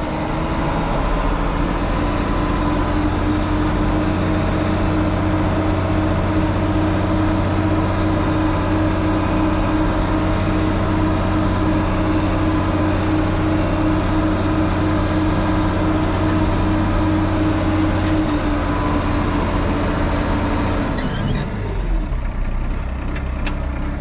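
Ford TW-35 tractor's six-cylinder diesel engine running steadily while the tractor is driven, heard from inside the cab. Near the end the engine speed drops, its pitch falling.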